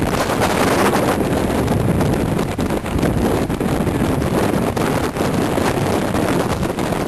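Strong gusting wind buffeting the microphone, a loud, steady rushing roar with deep rumbling flutter.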